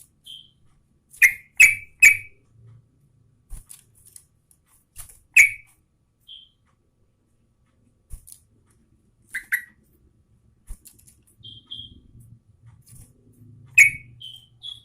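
Yellow-vented bulbul (trucukan) calling in short, sharp notes: a quick run of three loud notes about a second in, then scattered single notes and thinner higher chirps, over a faint low hum.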